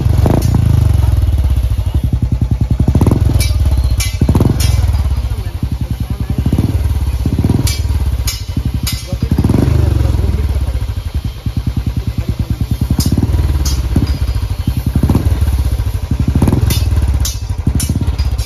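Royal Enfield Bullet's single-cylinder four-stroke engine running with a steady, rapid exhaust thump, revved in short bursts several times through the chrome silencer.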